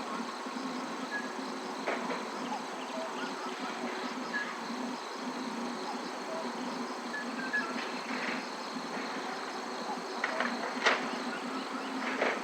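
Steady insect buzzing, with short scattered chirps over it and a few sharp ticks near the end.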